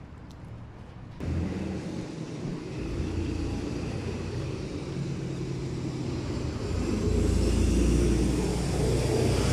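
Steady low rumble of street traffic. It starts suddenly about a second in and gets louder around seven seconds.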